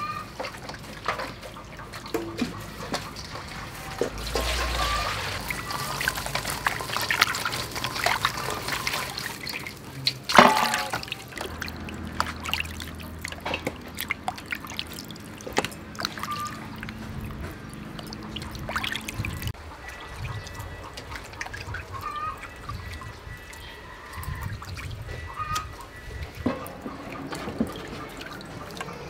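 Raw chicken wings being washed by hand in water in a metal basin: water sloshing, trickling and dripping, with small clinks against the bowl. There is a sharp knock about ten seconds in.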